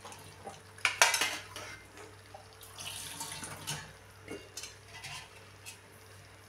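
Long steel spoon clinking and scraping against a steel colander and the pan while scooping cooked rice, with one sharp clank about a second in and lighter scrapes and taps after.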